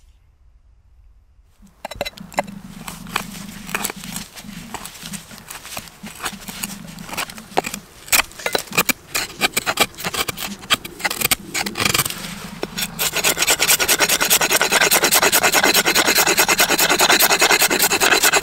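Wood being scraped and rubbed during bow-drill fire-making work: irregular scraping strokes with sharp knocks, then a fast, even rasping rub from about 13 seconds in.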